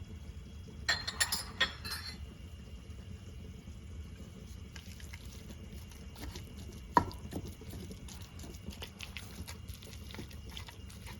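A spoon stirring ground beef in a pan, with scraping and clinking against the pan. There is a cluster of clicks about a second in and one sharp knock near the middle.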